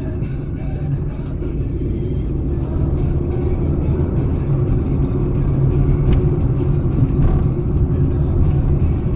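Car engine and road noise: a steady low rumble, with a short click about six seconds in.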